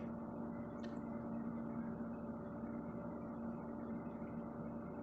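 Steady low background hum with a faint hiss, holding a few constant tones, and one brief faint click about a second in.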